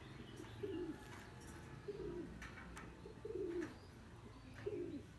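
Dove cooing: four short, low, slightly falling coos spaced about a second apart, with a few faint clicks between them.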